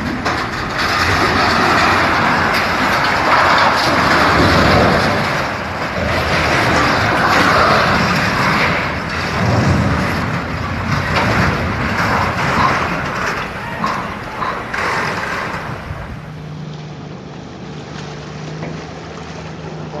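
Loud outdoor road and wind noise from a phone recording beside a highway. About 16 seconds in it cuts to a quieter, steady low engine hum.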